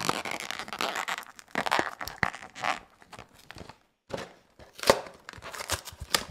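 A cardboard cookie box being torn open by hand close to the microphone. Several spells of ripping and rustling come with sharp snaps, and there is a short pause about two-thirds of the way through.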